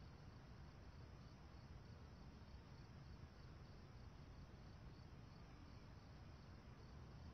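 Near silence with faint crickets chirping in an even, repeating rhythm.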